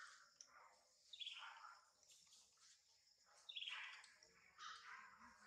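A bird calling faintly in the background: a series of short calls, each sliding down in pitch, repeated every second or two.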